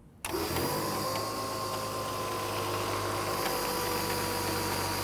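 CAFS unit's electric pump starting abruptly about a quarter second in and then running steadily, with the hiss of water-and-foam spraying from an unrestricted hose line. It runs smoothly without chugging, the sign that the line is open enough for the pump.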